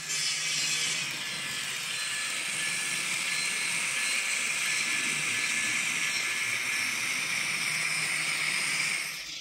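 Model diesel locomotive in CSX paint running along layout track with a short freight train: a steady hiss over a low steady hum, dropping away near the end.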